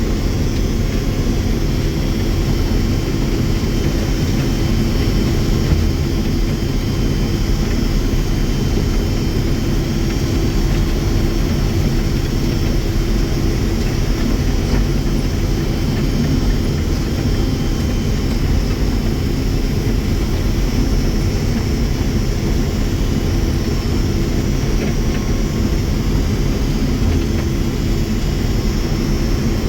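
Combine harvester running steadily while harvesting corn: a constant engine and machinery drone with a few steady low tones.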